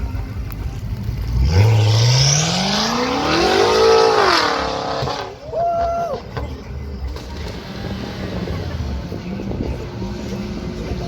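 A car engine under hard acceleration, revving up steadily for about two and a half seconds, levelling off and then cutting off abruptly. A short higher-pitched tone follows, then a lower background rumble.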